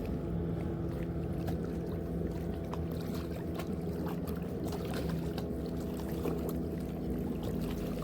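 A boat engine running steadily at low revs, an even hum, with a few light clicks over it.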